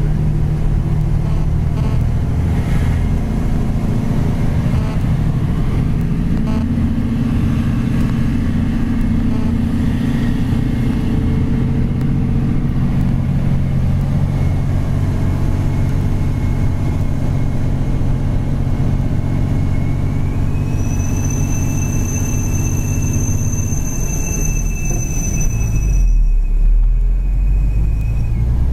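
Mitsubishi Fuso truck's diesel engine running steadily under load, heard inside the cab while descending a hill. About twenty seconds in, a high whine joins for several seconds, and near the end a deep rumble swells.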